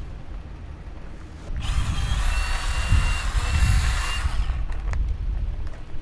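A high motor whine that rises as it starts, over low rumbling. It runs for about three seconds from a second and a half in, stops abruptly, and comes back right at the end.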